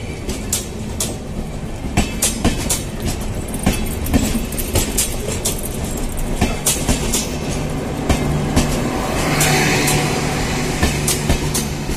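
Passenger train passing at close range, its wheels clacking over rail joints in a quick, irregular stream of sharp clicks. From about two-thirds of the way in, a steady low hum joins as the LHB generator power car with its diesel generator sets goes by.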